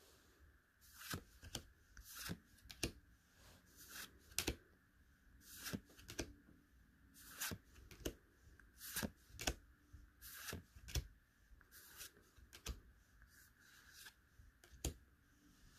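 Pokémon trading cards being flipped through by hand, each card slid off the stack and across the others with a short, sharp swish, about one or two a second at an uneven pace.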